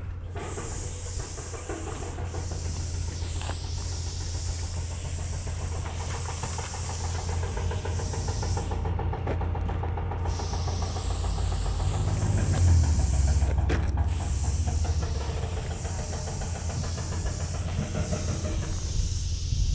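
Aerosol spray paint hissing out through a four-needle skinny cap adapter in long sprays, cut off briefly about nine seconds in and again near fourteen seconds. A low rumble runs underneath and swells about twelve seconds in.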